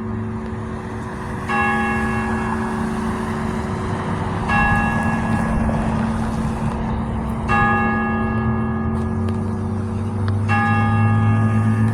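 Church bell striking 10 o'clock, one slow stroke about every three seconds. Four strokes fall here, each ringing on into the next, over a steady low hum.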